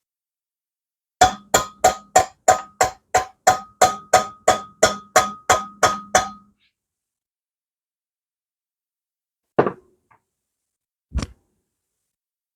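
A hammer striking metal: a quick run of about sixteen blows, roughly three a second, each leaving a short metallic ring. Two single blows follow near the end.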